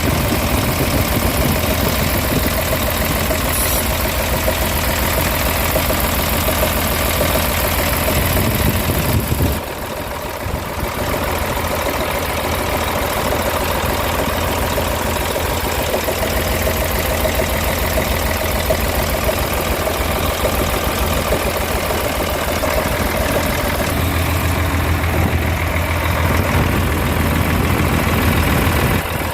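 Caterpillar C11 six-cylinder diesel engine in a 966H wheel loader running at a steady idle with an abnormal knock, the sign of an internal engine fault being troubleshot. It runs quieter for a moment about ten seconds in, and the low drone grows stronger near the end.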